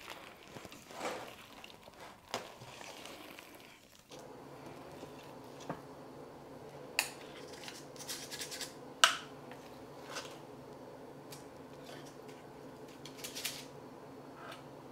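Spoons folding thick muffin batter in a stainless steel bowl, then scooping it into a metal muffin tin with two spoons: soft scraping and a few sharp metal clinks, the loudest about 7 and 9 seconds in. A steady low hum sits under it after a cut about 4 seconds in.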